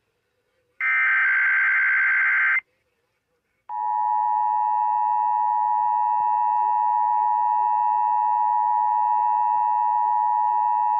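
The last burst of an Emergency Alert System digital header, a harsh warbling data screech lasting about two seconds. After about a second of silence the EAS two-tone attention signal starts and holds steady.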